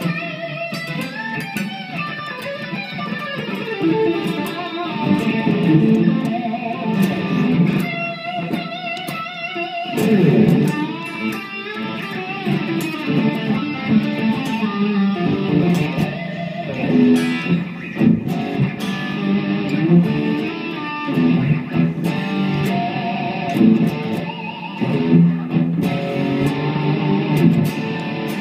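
2007 Epiphone Les Paul Custom electric guitar, fitted with a Gibson 490T bridge pickup and a Seymour Duncan SH-2 Jazz neck pickup, played with distortion: a continuous run of riffs and single-note lines, some held notes wavering with vibrato.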